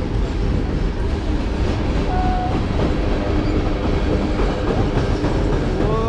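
Freight train of tank cars rolling across a steel girder railway bridge directly overhead, heard from beneath it: a loud, steady rumble of wheels and cars.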